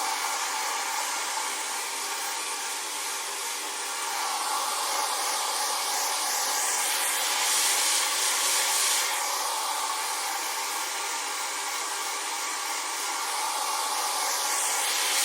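Electric hair dryer running steadily: a continuous rush of air over a motor whine. The hiss grows brighter and louder a little past halfway through, and again at the very end.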